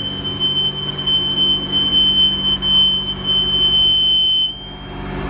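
High-pressure coolant alarm on a DMG Mori NLX1500SY CNC lathe sounding one steady high-pitched tone, which cuts off about four and a half seconds in, over the hum of the running machine. The alarm is a sign that the fixed-rate high-pressure coolant system can't deliver the coolant flow the program calls for, which the machinist believes is the cause.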